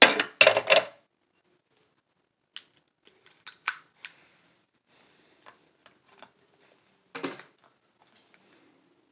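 Boiled lobster claw shell cracking and snapping as it is cut with scissors and pulled apart by hand. A quick run of loud crunches comes in the first second, then scattered small shell clicks and crackles, and one more crackle about seven seconds in.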